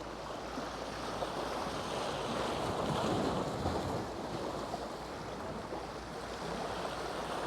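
Sea waves washing in, with wind on the microphone; the wash swells about three seconds in, then eases.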